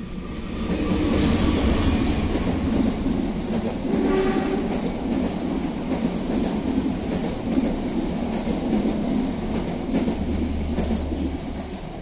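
Cicada buzzing loudly at close range, a dense rattling drone that swells up over the first second or two, holds, and fades away near the end.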